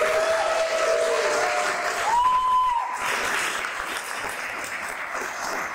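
Wedding guests applauding, the clapping easing off over the last couple of seconds.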